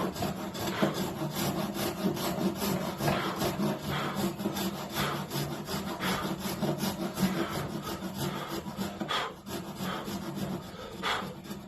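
Panel saw cutting through timber by hand, in steady repeated back-and-forth strokes.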